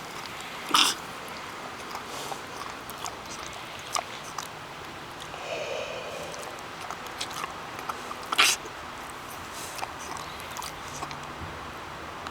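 Potbellied pig snuffling and sniffing up close, with many small wet clicks. There are two short, sharp blasts of breath from its snout, one about a second in and a louder one past eight seconds, and a brief high-pitched call halfway through.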